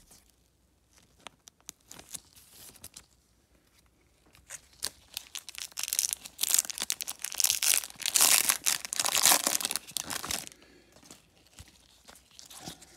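A trading-card pack wrapper being torn open and crinkled: a few seconds of loud crackling tearing in the middle, with light rustling and clicks of cards and wrapper being handled before and after.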